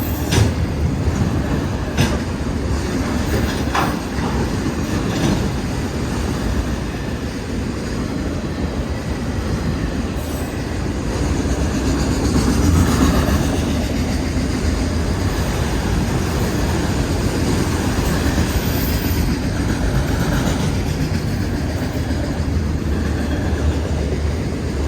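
Freight cars of a CSX manifest train rolling past at close range: a steady rumble of steel wheels on rail, with a few sharp wheel clicks over rail joints in the first few seconds.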